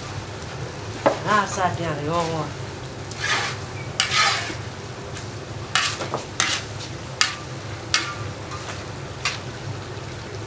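A metal skimmer turning rice in a large kazan of Uzbek pilaf, scraping through the grains and knocking against the pot several times, over the steady sizzle of the broth cooking underneath.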